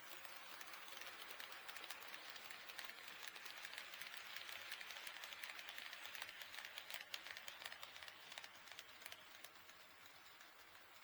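HO scale model train running past on the track: a faint rushing of the wheels with many fine rapid clicks. It grows louder in the middle and fades away near the end.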